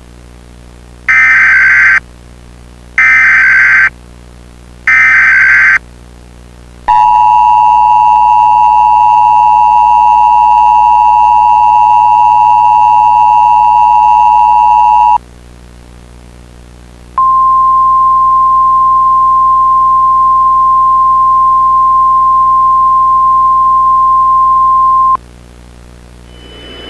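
Emergency Alert System tones: three short buzzy SAME digital header bursts about a second apart, then the two-tone attention signal held steady for about eight seconds. After a short pause comes a single steady NOAA Weather Radio alert tone for about eight seconds, signalling that a weather warning message follows.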